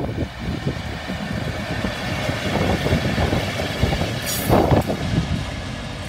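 Pair of Taiwan Railway diesel locomotives running light as they pass close by: steady engine rumble with wheels clattering on the rails. A brief, louder burst about four and a half seconds in is the loudest moment.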